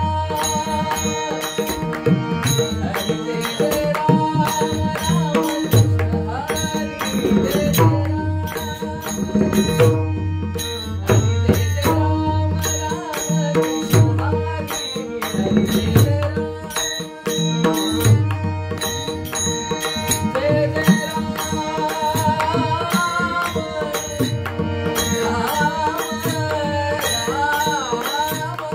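Devotional bhajan music led by pakhwaj (mridang) drumming, with repeated deep bass strokes and crisp higher strokes, over steady sustained drone tones. In the second half a melodic line glides and ornaments above the drone.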